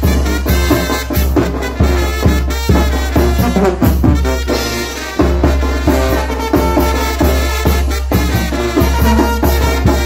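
Small Mexican brass band playing a chilena live: trumpets carry the tune over a sousaphone bass line, while bass drum, cymbal and timbales keep a steady, even beat.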